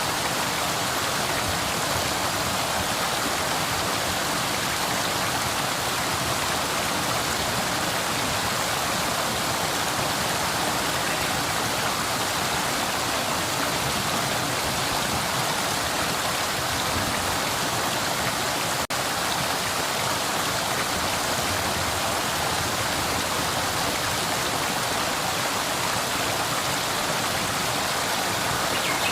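River water flowing steadily, a continuous rushing with no change in level, broken only by a momentary dropout about two-thirds of the way through.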